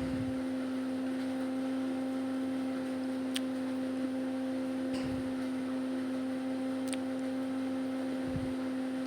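A steady, unchanging hum on one low tone with its overtones, and a few faint clicks and taps from the gift box being handled and opened.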